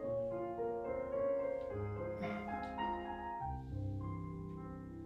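Solo piano accompaniment for a ballet barre exercise: sustained chords under a slow melody, with a new chord every second or so, growing slightly softer toward the end.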